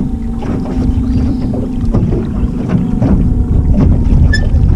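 Wind blowing across the microphone in a low, steady rumble, over the faint steady hum of an electric trolling motor pushing an aluminum jon boat through choppy water.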